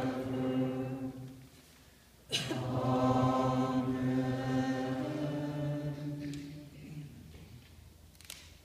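Male voices chanting liturgical phrases in unison, held on steady notes that step in pitch. The first phrase dies away after about a second, and a second, longer phrase starts just after two seconds and fades out near the end. A sharp click marks the restart, and a fainter one comes near the end.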